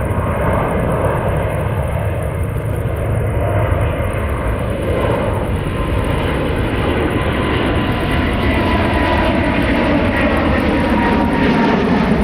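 Airbus A330-800neo airliner's Rolls-Royce Trent 7000 jet engines at climb power during takeoff. The noise grows steadily louder as the plane comes closer overhead, with a faint steady whine in the second half.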